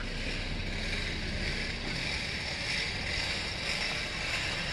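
Steady outdoor background noise: an even hiss with a low rumble underneath.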